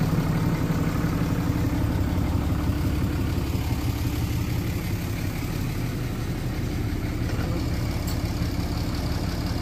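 Pickup truck engine idling steadily, running as the donor vehicle while booster cables are hooked up to jump-start a tractor.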